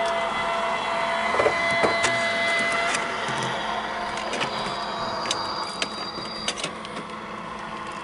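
Model railway trains running: a steady electric whine, with a higher thin tone partway through and scattered light clicks.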